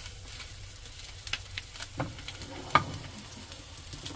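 Egg roll (gyeran-mari) sizzling in hot oil in a frying pan, with a few sharp clicks and scrapes of a spatula against the pan as the roll is turned over. The loudest click comes near three seconds in.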